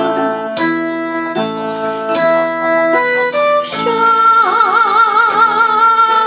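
Instrumental music from a Chinese song accompaniment: a plucked string instrument plays a melody of separate stepped notes, then about four seconds in a sustained, wavering melody line takes over.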